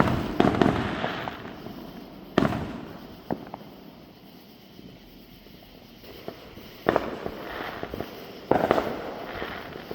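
Fireworks going off: a series of sharp bangs, some followed by crackling.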